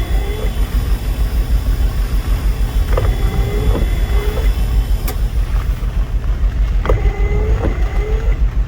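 Jeep windshield wipers squeaking across wet glass: a click and a squeal on each sweep, one back-and-forth pair about every four seconds. Under them is the steady low rumble of the idling Jeep.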